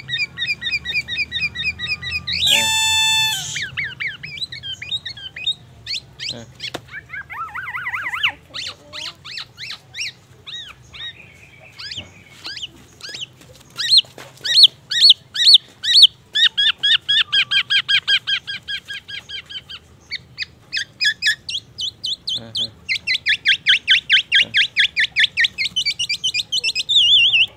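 Caged black-naped oriole (kepodang) singing a fast, varied song of rapidly repeated notes, trills and whistled phrases, with one harsh, buzzy note about two and a half seconds in. The song is full of mimicked phrases, which the keeper presents as borrowed from the white-rumped shama and an ambulance siren.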